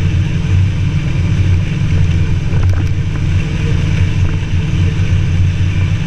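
Motorcycle and sidecar running at steady road speed: a constant low engine drone with wind rushing over the microphone.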